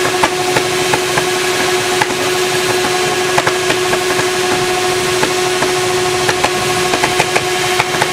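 Yamaha R1 inline-four engine running hard at a steady, held pitch while being run to destruction and smoking, with irregular sharp clicks and knocks over the top.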